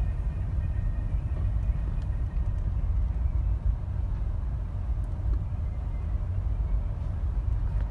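Steady low rumble of a car, with a few faint knocks about two to three seconds apart.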